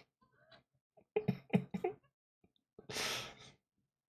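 A man's quiet breathy chuckle of about five quick pulses, followed about three seconds in by a single breathy exhale, like a sigh.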